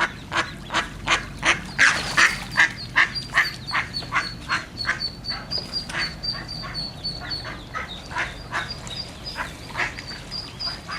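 A hen duck quacking over and over at an even pace, about two or three quacks a second, calling to her ducklings. From about three seconds in, the ducklings join with thin, high, rapid peeping.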